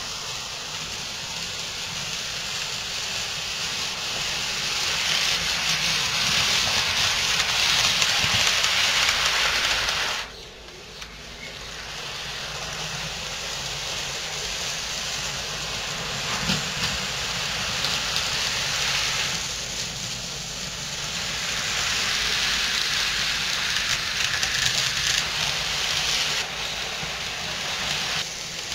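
Model trains running on the layout: a steady hissing whirr of small motors and wheels on the track. It grows louder, drops off sharply about ten seconds in, then builds again.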